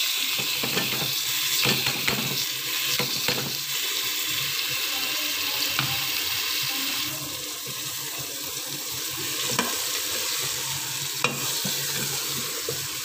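Boiled, chopped cluster beans sizzling as they fry in hot masala in an aluminium pot, with a metal spoon scraping and knocking against the pot now and then as they are stirred in.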